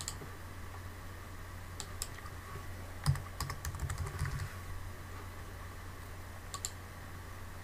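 Typing on a computer keyboard: a quick burst of keystrokes about three seconds in, with single clicks before and after, over a steady low hum.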